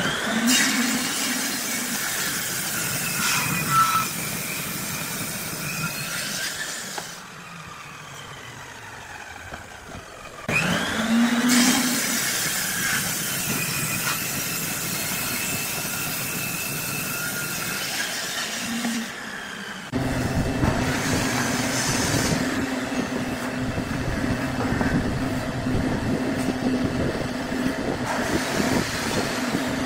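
Table saw cutting through a glued-up block of laminated hardwood in two long passes, the motor running quieter between them. Near the end of the second third the cutting gives way to a different steady hum.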